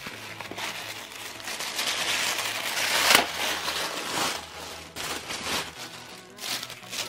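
Tissue paper crinkling and rustling as a box lined with it is unpacked, loudest about two to three seconds in.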